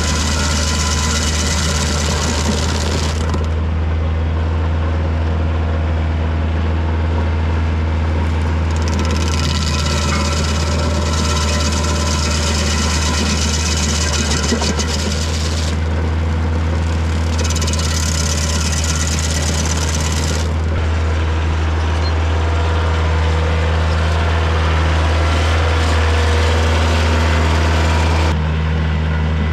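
Diesel tractor engine running steadily under load, driving a PTO stump grinder, with spells of harsh grinding noise coming and going as the cutter wheel chews into a pine stump. Near the end the sound changes abruptly.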